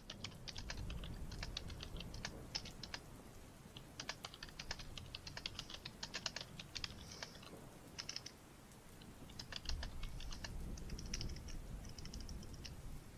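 Typing on a computer keyboard: quick runs of key clicks broken by short pauses, with a steady low rumble underneath.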